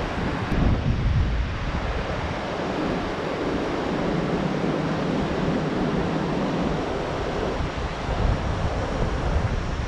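Mahaweli River water rushing over rocks in shallow rapids, a steady hiss, with wind buffeting the microphone in gusts about a second in and again near the end.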